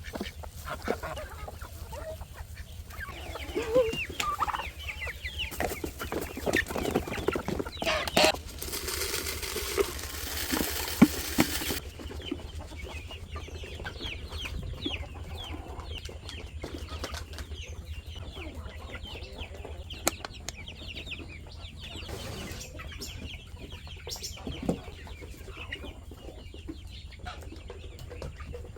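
Chickens clucking, many short calls scattered through, with a few seconds of rushing noise about a third of the way in.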